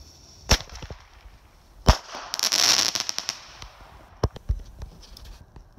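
Small fireworks going off: a sharp bang about half a second in and a louder one near two seconds, then about a second of hissing crackle, then a few smaller pops.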